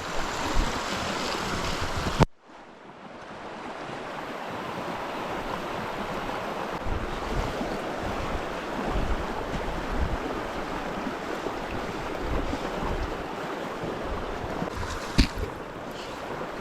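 Steady rush of fast-flowing river water, with some wind on the microphone. A sharp click about two seconds in cuts the sound down briefly before it builds back, and another short click comes near the end.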